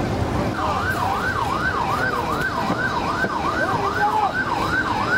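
Emergency vehicle siren in a fast yelp, its pitch rising and falling about three times a second, starting about half a second in. Beneath it runs a low rumble of vehicle engines and traffic.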